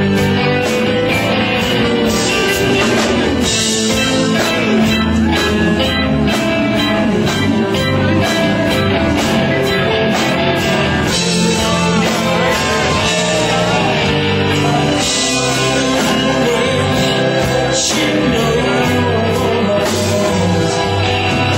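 Rock band playing live, with electric guitar and singing.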